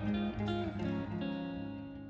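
Background music of plucked acoustic guitar notes, fading out toward the end.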